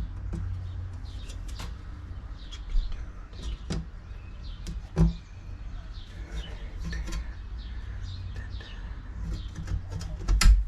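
Birds chirping in the background over a steady low rumble, with a few sharp knocks from hand work on the window; the loudest knock comes near the end.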